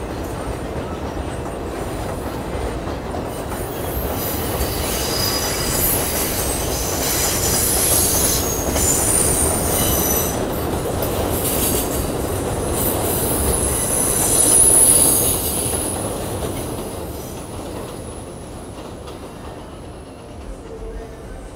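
R142 subway train running past on curved elevated track, its wheels squealing high over the rumble of the cars. The squeal is strongest from about four seconds in until two-thirds through. The sound then fades as the train draws away.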